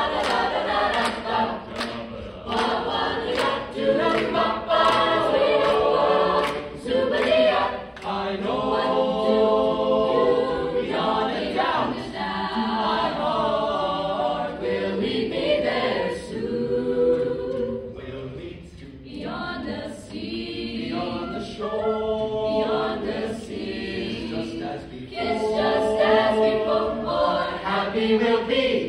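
Mixed-voice high school choir singing in harmony, with the singers clapping along during the first few seconds.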